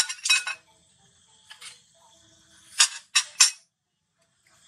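Short bursts of rustling and scraping as a baby macaque shifts about in a cardboard box against a plush toy. There is a cluster at the start, a softer one about a second and a half in, and three sharp scrapes in quick succession about three seconds in.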